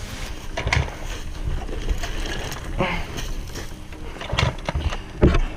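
Dirt bike running over rough ground, with wind on the microphone and several hard knocks and thumps, the loudest near the end.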